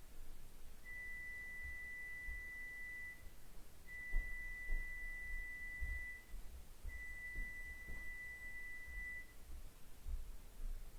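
Three long, steady electronic beeps at one high pitch, each lasting about two seconds, with short gaps between them.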